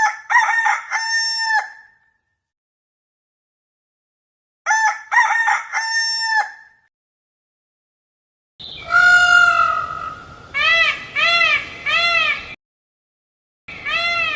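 A rooster crows twice, a few seconds apart. Then a peacock calls: one long call followed by four short arched calls in quick succession, and more calls start near the end.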